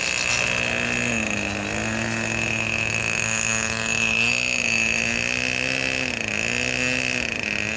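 Radio-controlled model autogyro's motor and propeller running steadily in flight, the pitch dipping and rising again a few times as the throttle changes, with a thin high whine above it.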